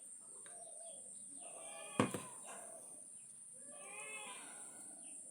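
A single sharp knock or clink about two seconds in. Faint calls and a steady high hiss sit in the background.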